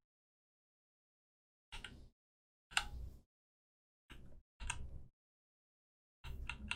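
Five short, separate taps and clicks on a computer keyboard and mouse, with dead silence between them.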